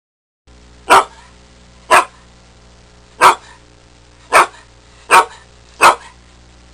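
A dog barking: six short, sharp barks, about one a second, after a brief silence at the start.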